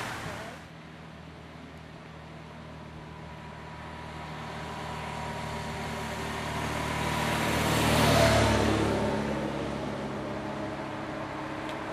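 A motor vehicle's engine passing by: its steady hum grows louder to a peak about eight seconds in, then fades away.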